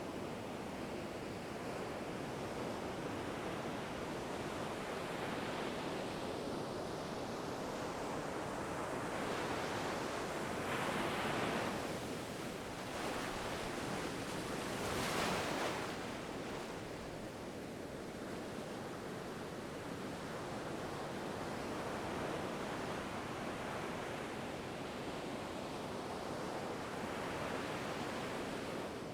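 Ocean waves breaking on a shore: a continuous hiss of surf, with two louder breaking waves washing in about a third and about halfway through.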